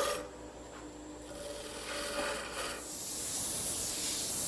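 Wood turning on a lathe: a faint steady hum, then from about three seconds in a steady hissing scrape of a tool working the spinning wood.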